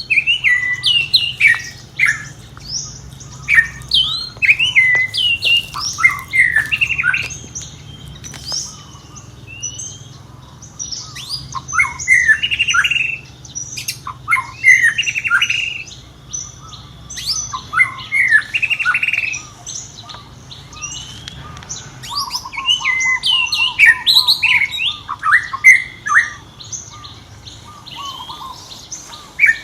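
Baby monkey squealing and chirping: many short, high-pitched cries, often falling in pitch, come in clusters with brief pauses. A fast rattling run of notes follows a little past the three-quarter mark.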